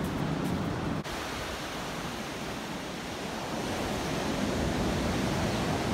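Small waves breaking and washing up a sand beach: a steady rush of surf that swells a little toward the end, with a sudden brief break about a second in.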